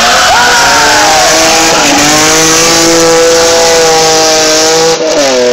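Race car engine at high revs under hard acceleration, its pitch climbing slowly through a long pull, with a short dip in pitch near the end before it climbs again.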